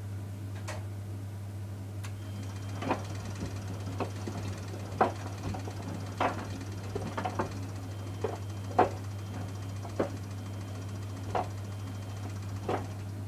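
Miele Softtronic W 435 front-loading washing machine early in its wash, with a steady low hum under about a dozen short, irregular knocks and clicks from inside the turning drum.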